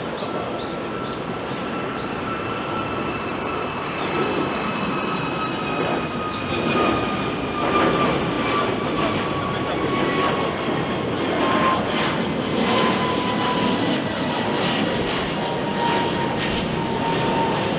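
Airbus A321neo jet engines at take-off power, with a steady jet noise and a whine that slowly falls in pitch, gaining a crackle about four seconds in.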